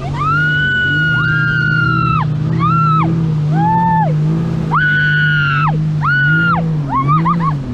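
Jet ski engine running, its pitch wavering, under a high-pitched melody of long held and gliding notes.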